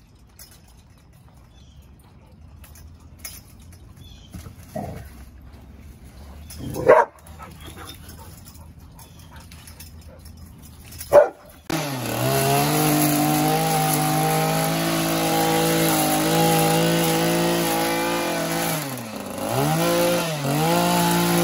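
A dog barks three times, the second and third barks loud. Then a gas string trimmer runs at high speed, loud and steady, and near the end its pitch dips and rises several times as the throttle is eased and opened.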